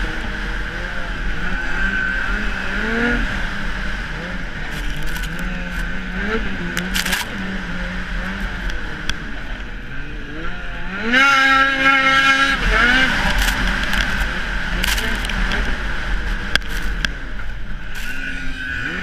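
Ski-Doo snowmobile engine running hard at racing speed, its pitch rising and falling with the throttle, climbing to a loud high-revving stretch about eleven seconds in before easing off. A few sharp clicks sound over it.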